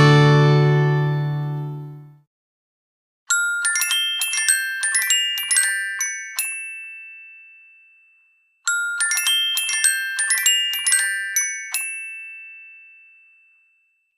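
LG V30 phone ringtone: a short, bright chime melody of bell-like notes, like a glockenspiel, played twice with a pause between, each time ringing out. Over the first two seconds the last chord of a strummed acoustic-guitar ringtone fades away.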